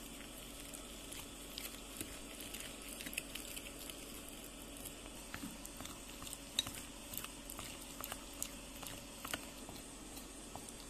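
A metal spoon stirring thick flour batter in a glass bowl, with many light, irregular clicks and scrapes of the spoon against the glass.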